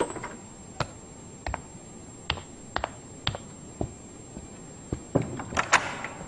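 A series of sharp, separate taps and clicks, about a dozen at uneven intervals, with a small cluster near the end.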